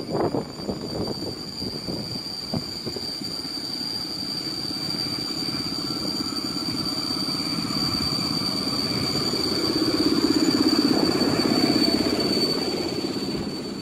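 PKP Intercity EP07 electric locomotive hauling a passenger train into the platform. Its running rumble grows louder as it comes close, and a steady high whine carries through. A few sharp knocks sound near the start.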